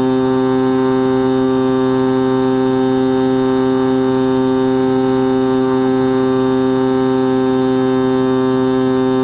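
Skywalker X-8 flying wing's electric pusher motor and propeller running at a constant throttle, a steady buzzing hum whose pitch does not change, picked up by the camera mounted on the plane.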